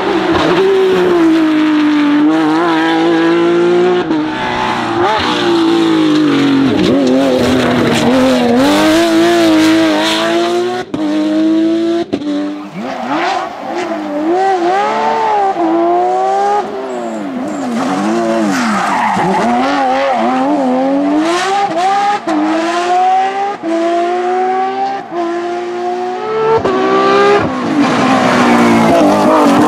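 Porsche 911 GT3 rally car's flat-six engine driven hard on a stage, its pitch repeatedly climbing high and dropping sharply at each gear change, with swoops down and back up as it brakes and accelerates again.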